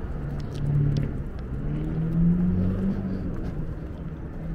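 Low engine drone of a motor vehicle, growing louder with a slight rise in pitch about two seconds in, then easing off.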